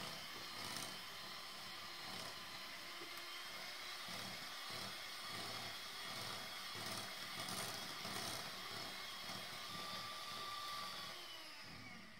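Electric hand mixer running steadily, its beaters creaming melted butter and caster sugar in a glass bowl; near the end it is switched off and winds down.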